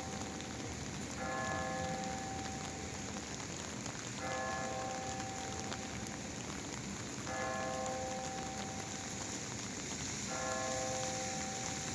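Heavy rain pattering steadily on an umbrella. A bell-like chime of several tones sounds for about two seconds, repeating every three seconds or so.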